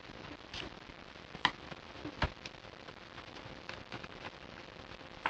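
Scattered light clicks and taps of a small screwdriver and screws against a laptop LCD screen's metal frame as the new panel is screwed in, over a faint steady hiss.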